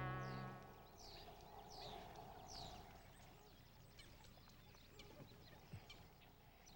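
Faint outdoor ambience with three short, falling, bird-like chirps in the first three seconds and scattered faint ticks, after a buzzing hum fades out within the first second.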